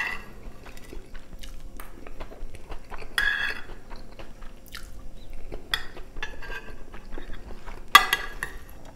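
Eating sounds: chewing of stroganoff, rice and crunchy shoestring potato sticks, with a metal spoon scraping and clinking against a glass baking dish. The sharpest, loudest clink comes near the end.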